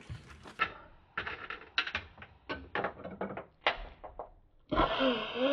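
A run of about a dozen irregular sharp clicks and knocks, like small hard objects striking. Near the end, a pitched sound that rises and falls in waves begins.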